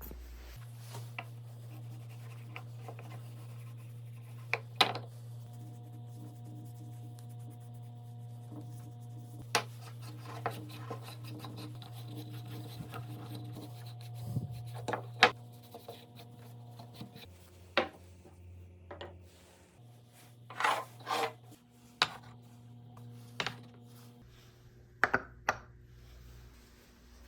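Wood being rubbed and scraped, with scattered light knocks and clicks of wooden parts being handled, over a steady low hum.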